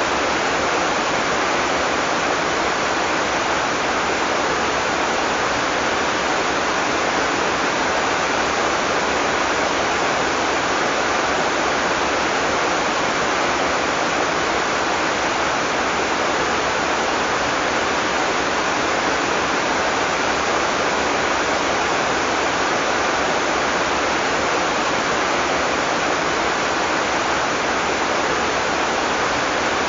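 Heavy rain falling steadily: a dense, even hiss that does not let up, with no thunder.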